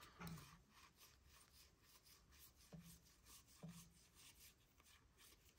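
Faint scratchy sliding of a stack of Topps baseball cards being thumbed through by hand, card stock rubbing against card stock in many short strokes, with a few soft low thumps.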